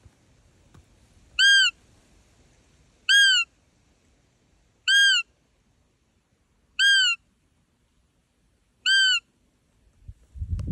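Roe deer caller sounding the high, piping fiep used to call a roe buck in the rut: five short calls, each rising then falling in pitch, about every two seconds. A low rustle of handling noise comes in near the end.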